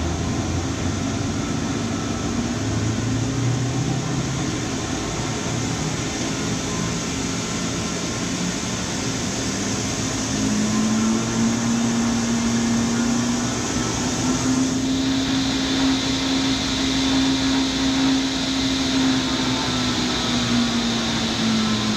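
Mazak AJV-60/80 twin-pallet vertical machining center running: a steady mechanical hum and hiss whose pitch shifts slightly. A high steady whine joins about two-thirds of the way through.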